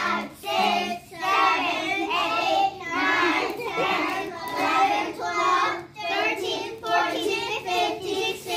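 A group of children chanting numbers aloud in unison, counting off about one number a second as a timer for a party game.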